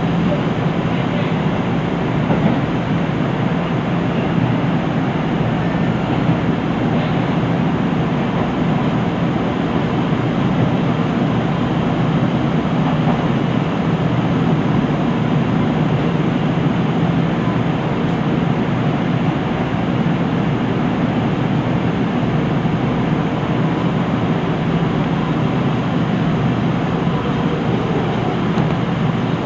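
KiHa 75 diesel railcar's engine running with a steady hum, heard from inside the carriage as the train runs into a station and comes to a stop.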